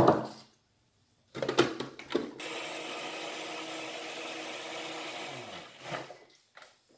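Countertop blender puréeing raspberries with icing sugar. After a few knocks and clatters from handling the jar and lid, the motor starts about two seconds in, runs steadily for about three seconds, then winds down with falling pitch.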